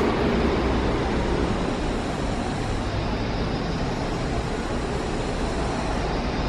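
Steady background rumble and hiss of road traffic and station ambience, easing slightly over the first couple of seconds, with no distinct events.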